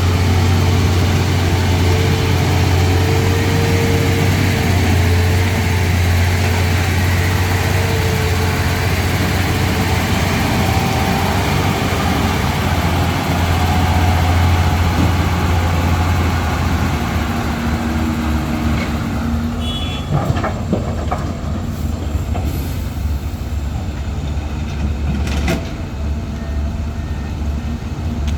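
Heavy diesel engine of earthmoving machinery running under load with a steady low drone. About two-thirds through it eases, and a few sharp knocks come in near the end.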